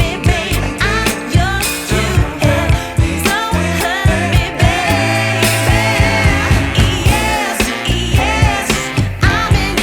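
Pop song with a sung lead vocal over a steady drum beat and bass.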